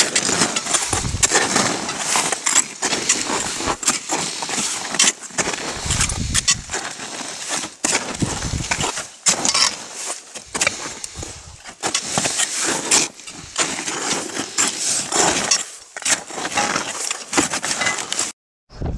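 Climbers' boots crunching on snow, mixed with heavy rubbing and buffeting noise on the microphone that comes and goes irregularly. It cuts off suddenly near the end.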